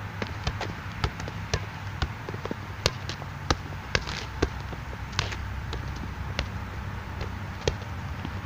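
A volleyball being passed back and forth by hand, with a sharp slap at each touch, several of them unevenly spaced. A steady low rumble lies underneath.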